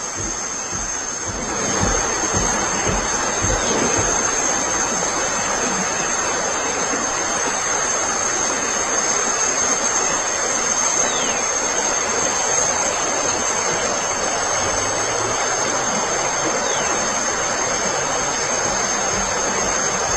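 Steady rush of flowing water, like a forest stream or small waterfall, with a steady high-pitched tone over it.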